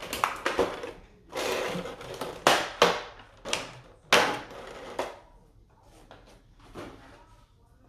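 Handling noise from a boxed collectible statue and its packaging: a string of sharp knocks and clicks with some rustling, busiest in the first five seconds and fainter after.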